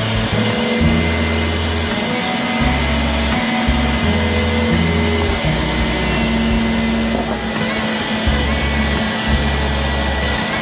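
Centrifugal juicer's motor running steadily with a high whine while produce is fed through it, over background music with a bass line.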